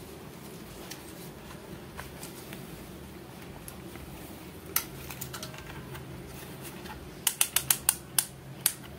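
Clamp meter being handled: one sharp click about five seconds in, then a quick run of about seven sharp clicks near the end as its rotary selector dial is turned through its detents. A low steady hum lies underneath.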